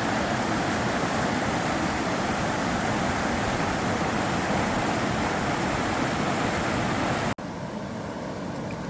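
Sava River water flowing and rushing in a steady wash of noise. About seven seconds in it cuts off abruptly and comes back quieter and softer.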